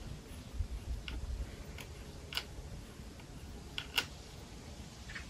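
Allen key clicking in and against screw heads as it is turned to snug up the screws of a kickstand adapter on an e-bike frame: a few sharp, separate clicks, the loudest about four seconds in.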